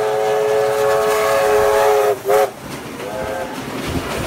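Steam locomotive 3801's whistle sounding a long steady blast that cuts off about two seconds in, followed by a short toot and a fainter brief one, heard from a carriage behind over the train's running noise.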